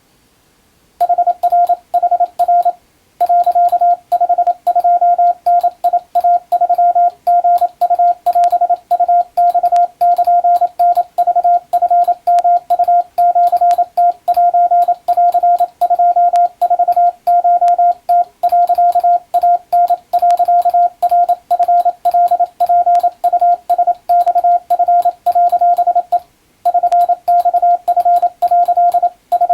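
Morse code (CW) sent as a single steady beep tone keyed on and off in dots and dashes for receiving practice. It starts about a second in and has short breaks between groups near the start and near the end.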